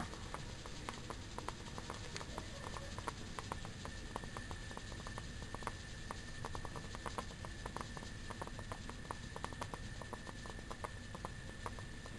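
Water heating in a corked glass test tube over a small gas burner flame, with irregular ticking and crackling several times a second over a faint steady high tone.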